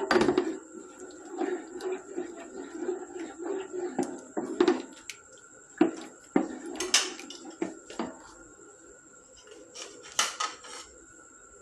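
A spoon scraping and knocking against a pan while stirring thick white sauce, with irregular clicks and scrapes and a couple of louder knocks.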